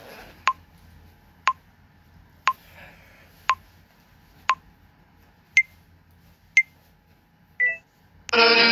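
A phone app's recording countdown timer ticking once a second: short, even beeps, the last two higher-pitched, then a slightly longer final beep. Music starts abruptly near the end as recording begins.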